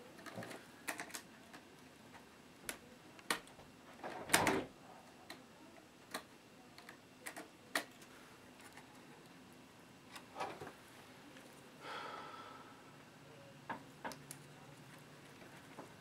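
Irregular plastic clicks and taps of a Dell D830 laptop's case and keyboard being handled and pried at during disassembly, with a louder clatter about four seconds in and a brief scrape near twelve seconds.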